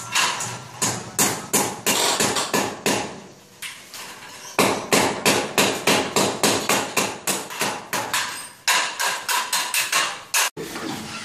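Rapid hammer blows, about three to four a second, on a galvanized steel ceiling frame as it is fixed to the top of a wall. The striking breaks off briefly about four seconds in and again near nine seconds, then stops suddenly near the end.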